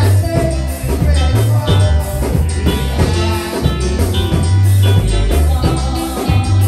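Lively church music with a heavy bass line and drums, playing loudly and without a break.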